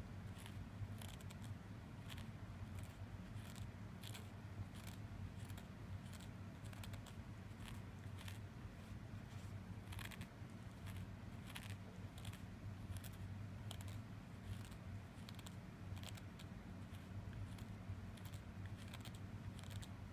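A cat's rough tongue licking the inside of a hard plastic Elizabethan collar, obsessively and repeatedly. The licks come as quick rasping scrapes, about two or three a second, unevenly spaced.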